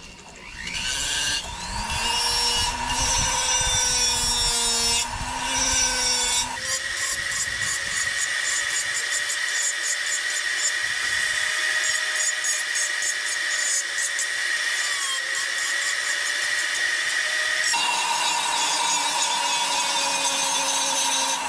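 Foredom flex-shaft rotary tool spinning up, then its sanding drum grinding against the carved wood with a steady whine. The whine steps higher and rougher about six seconds in and drops back again near the end.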